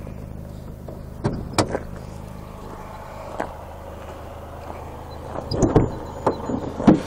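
Car engine idling steadily, with a few sharp clicks and then a cluster of louder knocks and clanks near the end as the hood is unlatched and lifted.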